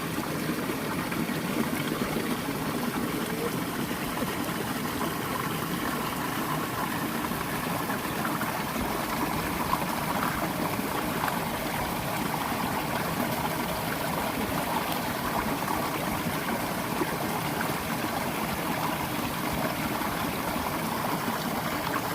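Steady running water, an even rushing and trickling with no change throughout.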